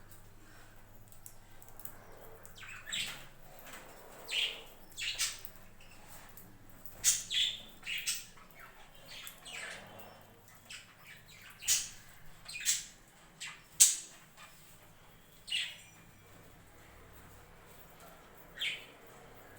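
Budgerigars chirping and squawking: short, separate high-pitched calls at irregular intervals.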